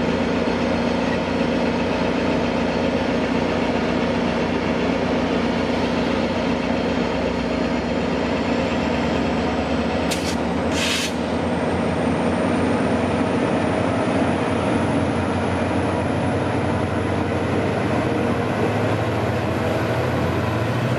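EMD F40PH diesel-electric locomotive's V16 two-stroke engine running with a steady, deep drone as the Caltrain commuter train pulls out, with a faint high whine rising slowly in the second half. A click and a short hiss come about ten seconds in.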